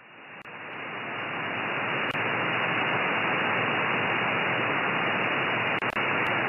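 Single-sideband receiver hiss from an RTL-SDR dongle and microwave downconverter tuned to an empty 2320 MHz channel between transmissions. It swells up over the first two seconds as the receiver's slow AGC brings the gain back after the strong signal stops, then holds steady, with a few faint clicks.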